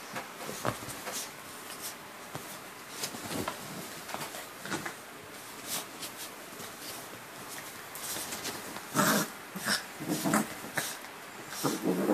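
Freshly bathed Yorkshire terriers rolling and rubbing in bedding: rustling of blankets with short snorts and growls, in irregular bursts, louder about nine to ten seconds in and again near the end.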